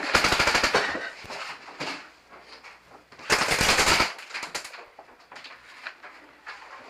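Airsoft gun firing two bursts of rapid automatic fire. The first lasts about a second; the second, shorter, starts about three seconds later. Fainter scattered shots come in between.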